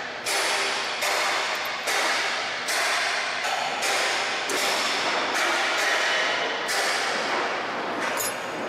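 A series of sharp, rasping strokes on metal, about one a second, each starting suddenly and fading away.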